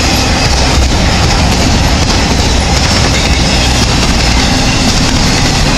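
Norfolk Southern intermodal freight train passing, its flatcars loaded with highway trailers: a steady, loud noise of steel wheels rolling on the rails.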